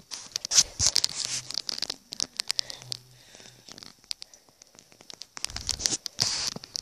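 Rustling, scratching and scattered clicks from the recording phone being handled and carried.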